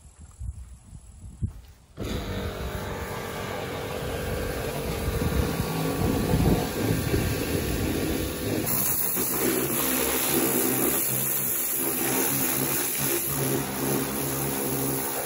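Pressure washer running with a steady motor hum, cleaning oak wood. From about two-thirds of the way in, the loud hiss of the water jet striking the wood joins the hum.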